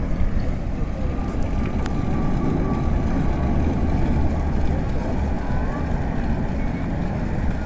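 Steady low rumbling noise outdoors, with a few faint short chirps over it.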